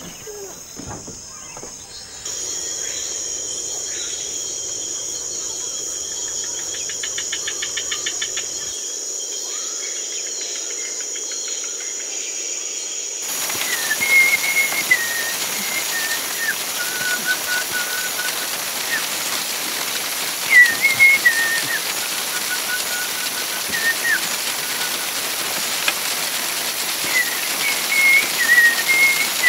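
Night insects keep up a steady high shrill. About halfway through, a leaf bundle starts rustling steadily, shaken in a shaman's healing ritual. Over it, someone whistles short repeated phrases, a high note stepping down to a lower held note.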